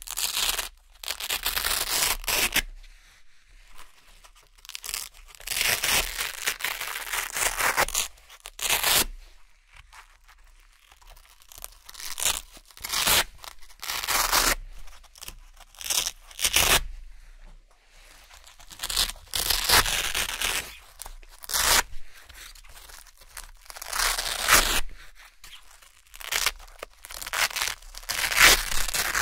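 Round hook-and-loop (Velcro) patches being peeled one after another off a Velcro-covered board: crisp, crunchy ripping in separate pulls of one to three seconds, with short pauses between.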